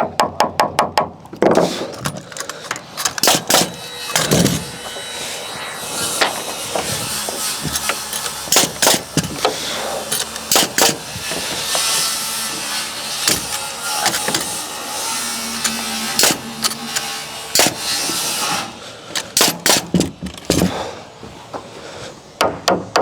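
Timber wall framing: repeated sharp strikes into framing timber, a quick run of them at the start and scattered single ones after, over a steady background noise through the middle.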